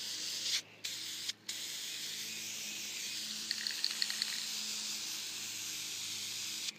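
Aerosol spray-paint can hissing as paint is sprayed, in long steady bursts with two brief pauses about a second in and a short run of ticks about halfway through; the hiss cuts off just before the end.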